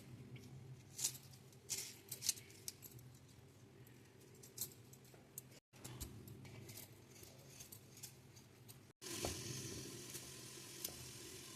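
Faint kitchen handling sounds: scattered light clicks and taps of utensils and dishes over a low steady hum, cutting out abruptly twice.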